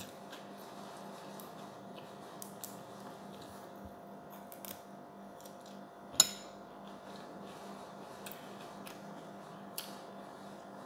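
Faint snaps and clicks of fresh leaves being pinched off their stems by hand, with one sharper click about six seconds in, over a steady low hum.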